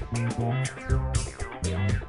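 Instrumental music: bass guitar and plucked guitar over a regular beat.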